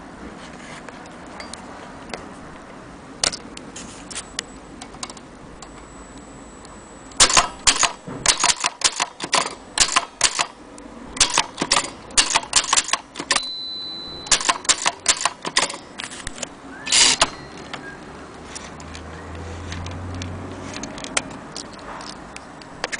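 1930 Corona portable typewriter being typed on: sharp key strikes in quick runs of clicks, sparse at first and densest through the middle, with a short high ring partway through.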